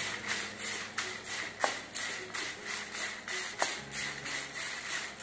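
Wooden spatula stirring dried red chillies in a metal kadai as they roast: a dry rustling scrape at about three strokes a second. The spatula knocks against the pan twice, about a second and a half in and again near the end.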